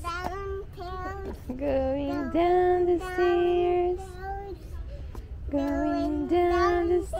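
A young child singing to themselves in a string of long held notes with short breaks, pausing for about a second past the middle before singing on.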